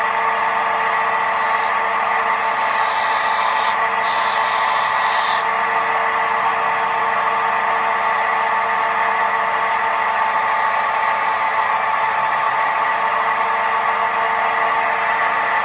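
Record wood lathe running steadily with a whine of several steady tones, while a turning tool makes fine cuts on the outside of a wooden bowl. A higher hiss from the tool cutting comes and goes in the first five seconds.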